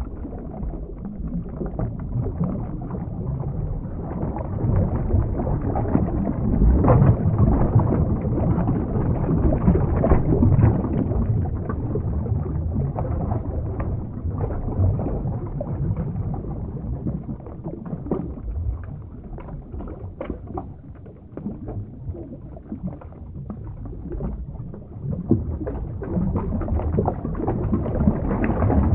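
Underwater ambience sound effect: a low, rushing water rumble with small crackling bubble pops. It swells louder for several seconds in the first half, eases off, and builds again near the end.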